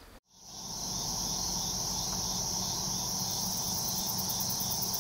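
Steady chorus of crickets trilling, fading in after a moment of silence and holding evenly.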